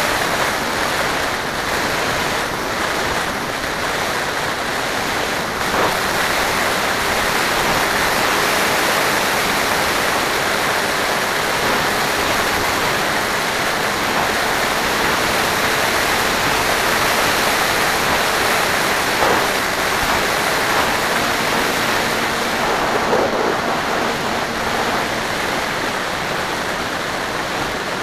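Steady rush of airflow over the onboard camera of an FPV model aircraft in flight, with a faint, steady motor hum underneath.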